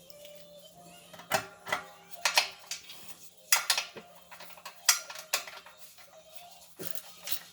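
Metal tools and parts clinking and knocking against one another in a series of sharp, separate clinks, over a faint steady hum.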